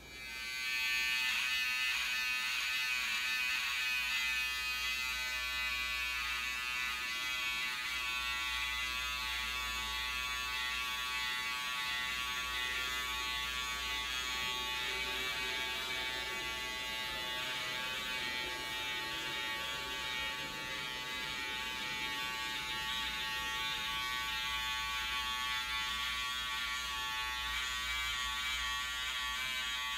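Electric hair clippers switched on and buzzing steadily as they cut a man's hair.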